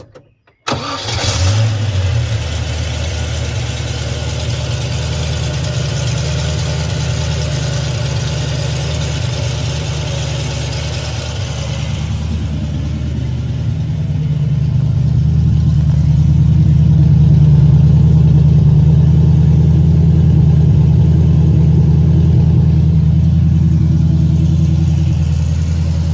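1998 TVR Chimera's Rover-derived V8 cold-started: it fires within about a second of the start and settles into a steady cold idle. The deep exhaust note grows louder from about halfway through, heard from beside the rear of the car.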